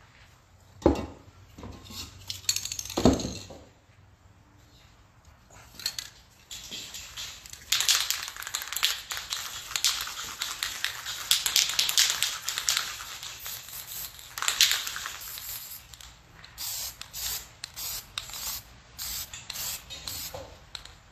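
Aerosol spray paint can hissing in one long spray lasting several seconds, then a string of short quick bursts near the end. Two sharp knocks come in the first few seconds.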